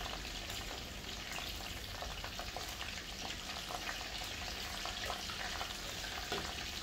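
Steady bubbling and sizzling on the stove, with light scattered clicks and splashes as metal tongs lay pieces of fried tilapia into a pot of boiling broth.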